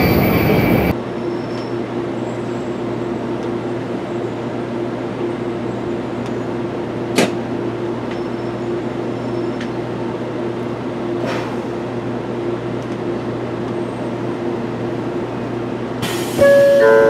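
Interior running noise of a 700 series Shinkansen heard from the door vestibule as it pulls into a station. A louder rush drops off abruptly about a second in to a steady hum with a steady whine, with a couple of faint clicks. Near the end, loud chime-like tones begin.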